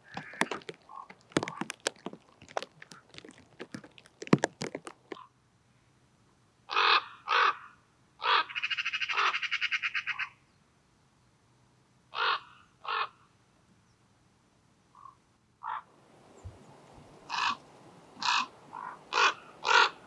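A run of sharp clicks and knocks in the first few seconds, then common ravens calling with short, deep caws, singly and in pairs, and one long rattling call about eight seconds in.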